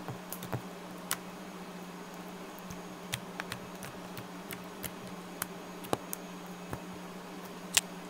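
Blue gel slime, made from gel glue and liquid starch, squeezed and stretched by hand, giving irregular sharp clicks and pops from trapped air, the loudest near the end, over a steady low hum.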